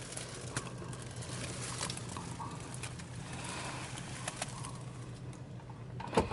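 Mazda BT-50's 3.0-litre Isuzu 4JJ3 turbodiesel idling, heard as a steady low hum inside the cabin, with a few faint clicks and taps, the loudest near the end.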